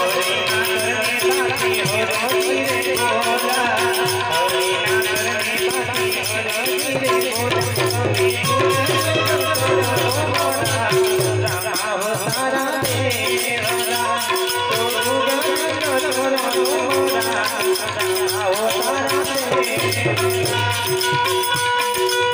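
Devotional folk music: a harmonium played steadily under a man's singing, over a steady rattling percussion beat.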